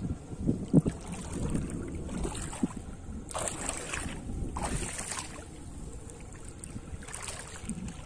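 Wind rumbling on the microphone, with three short bursts of splashing water about three, four and a half and seven seconds in, as hands work in shallow river water.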